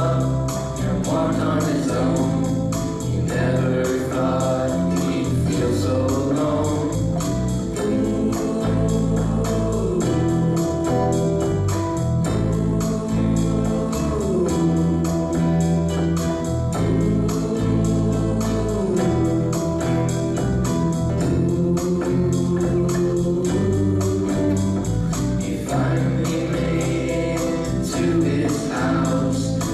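A live band with several voices singing together, performing an original song on stage.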